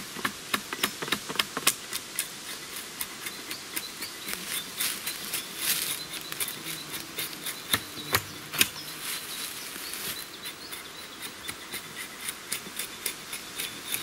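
Hatchet knocking along a thin birch pole to trim off twigs and knots for a tool handle: a quick, uneven run of sharp strikes, loudest a little past the middle. Horseflies and other insects buzz steadily underneath.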